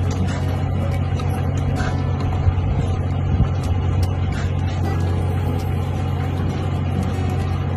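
Steady low drone of the squid-fishing boat's engine, with a few light clicks and knocks from the jigging reel being worked on deck.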